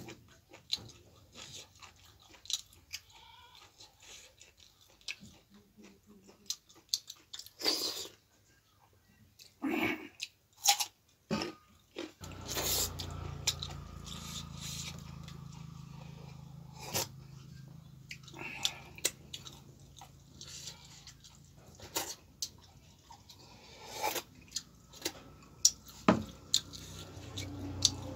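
Close-miked chewing, with wet mouth smacks and bites, from eating a meal of finger-millet dhido and chicken gizzard curry. About twelve seconds in, a steady low hum starts and carries on under the chewing.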